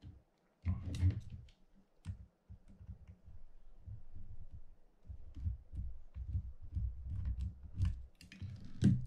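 Hands working on a Penn Senator 112H conventional fishing reel as its handle is taken off: scattered small metal clicks and taps from the handle nut, retainer and screwdriver, over dull bumps of the reel being handled on the mat. A louder clatter comes about a second in and again near the end.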